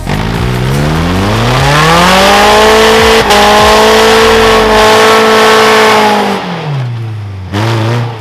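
Suzuki Grand Vitara's engine revving under load as it climbs a steep muddy bank: the revs rise over the first couple of seconds, are held high, then drop away about six seconds in, with a short blip of revs near the end.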